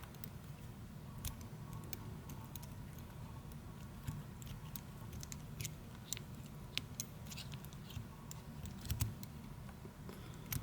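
Faint, irregular small metallic clicks and ticks of an Abloy Classic pick turning the discs of a 9-disc Abloy disc-detainer camlock back to their starting position so the pick can be withdrawn.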